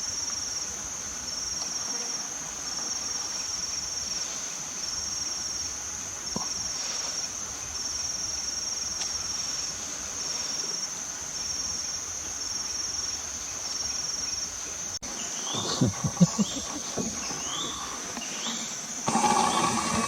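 Forest insects shrilling steadily, with a higher pulsing call that repeats in trains of about a second each. About 15 seconds in the sound changes to short rising chirps over the insects, with some low rustling.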